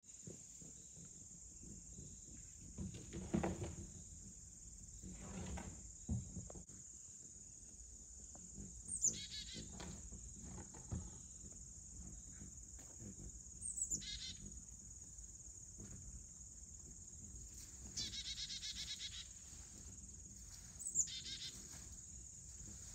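Steady high-pitched insect chorus, typical of crickets, with a small bird giving three short downward-sweeping chirps and one brief rapid trill. A couple of low muffled sounds come in the first few seconds.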